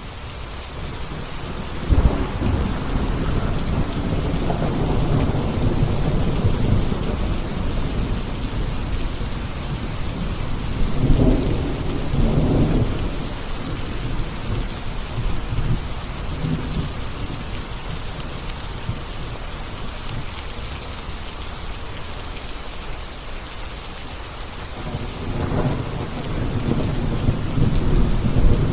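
Thunderstorm: steady rain with rolling thunder. A sharp crack about two seconds in leads into a long rumble, a second rumble follows around the middle, and a third builds near the end.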